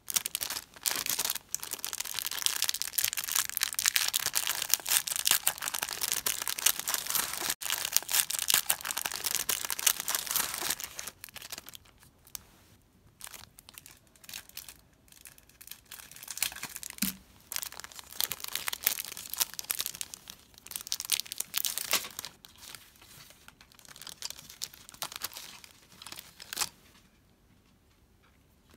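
Clear plastic packaging crinkling and tearing as it is handled and opened, with dense, continuous crackling for the first ten seconds or so, then thinning to shorter, scattered rustles.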